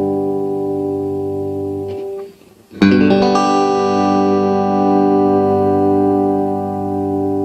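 Solid-body electric guitar played through a Fender Acoustasonic DSP Junior solid-state acoustic amplifier. A chord rings and is cut off about two seconds in. After a brief gap a new chord is strummed, and it rings on and fades slowly.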